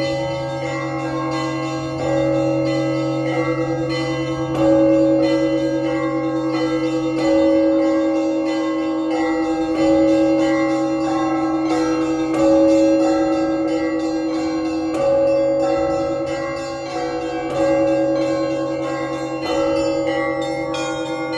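Russian Orthodox church bells rung together in a zvon. A big low bell is struck about every two and a half seconds, with a quick run of strokes on the smaller, higher bells over it, and each bell rings on long after it is struck.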